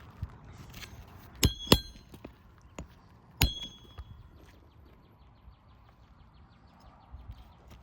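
Three sharp, ringing clinks of small hard objects: two in quick succession about a second and a half in, and one more about two seconds later. They are followed by faint rapid ticking, several ticks a second.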